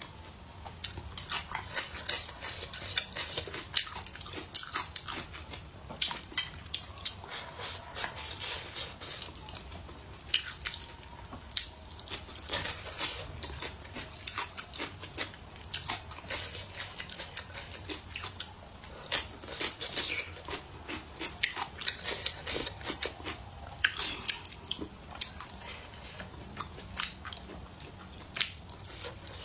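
Close-miked eating: chewing and wet mouth sounds, with many sharp, irregular clicks, along with wooden chopsticks tapping a ceramic bowl.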